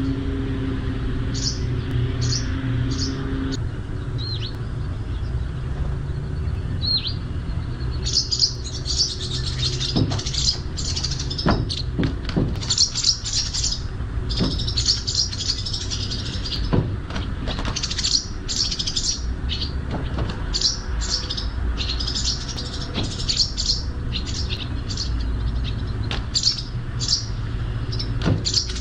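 Small birds chirping in quick, dense runs of high chirps as they fight over a nest that a sparrow keeps trying to invade. There are a few scattered chirps at first and nearly constant chirping from about a third of the way in. A steady low rumble lies underneath, with a motor-like hum in the first few seconds.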